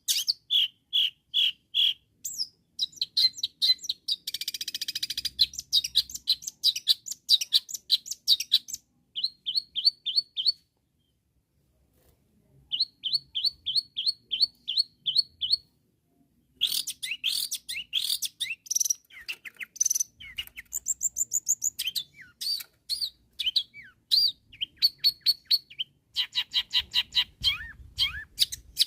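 Long-tailed shrike (cendet) singing loud and fast: runs of short, sharp notes repeated in quick phrases, with a harsh rasping stretch about five seconds in and a pause of about two seconds near the middle.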